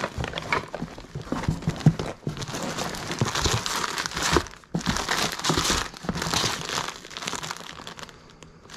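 Plastic bags and wrapping crinkling and rustling against cardboard as gloved hands rummage through a packed box, with a short break midway and quieter handling near the end.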